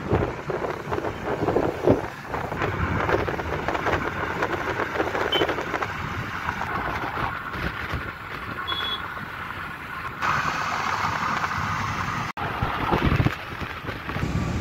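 Steady wind and road noise of a car driving at speed on a highway, heard from inside the car. There is a short high beep a little past the middle, and a brief dropout about three-quarters of the way through.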